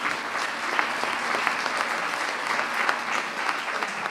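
Applause: a crowd of people clapping their hands together, steady throughout.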